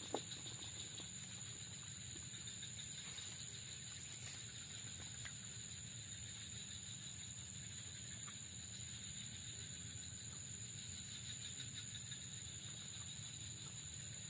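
Steady outdoor ambience: an even, high insect drone over faint hiss.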